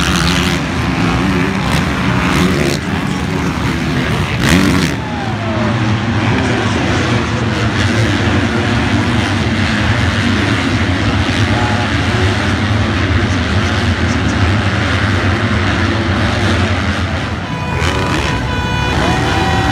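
Several motocross bikes racing around a dirt track, their engines revving and running together in a steady drone. There is a brief loud thump about four and a half seconds in. A few steady high tones come in near the end.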